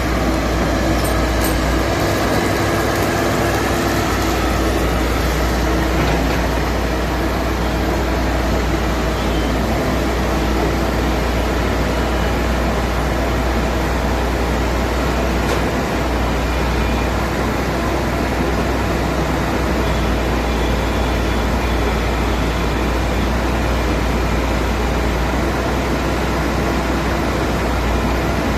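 Excavator's diesel engine running steadily, with a deep low hum under a dense mechanical noise that stays at the same loudness throughout.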